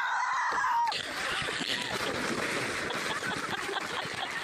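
A woman gives a high shriek lasting about a second, then water splashes and churns as she falls off a stand-up paddleboard into the lake.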